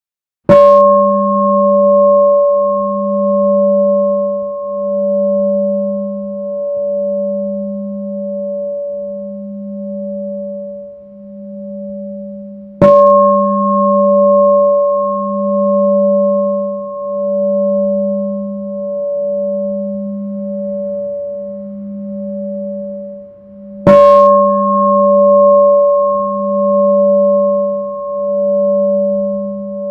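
Temple bell struck three times, about eleven to twelve seconds apart. Each strike is a sharp hit followed by a long, deep ringing hum that throbs slowly and fades before the next strike.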